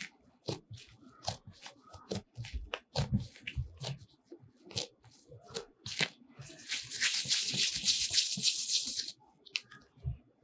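Hands working a piece of bread dough: soft pats, taps and sticky rustles as the seams are pinched closed and the dough is shaped into a ball, with a denser steady rustling for about two and a half seconds past the middle as the ball is rounded against the work surface.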